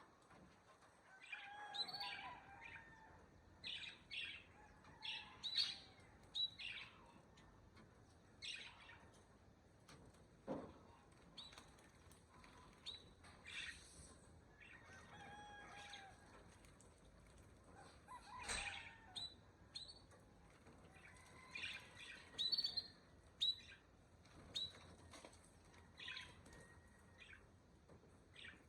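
Birds chirping and calling: many short, separate chirps come one after another at irregular intervals.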